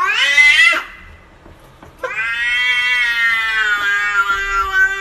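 A cat meowing in drawn-out calls. A rising call breaks off within the first second, then after a short pause comes a long call of about three seconds that slowly falls in pitch.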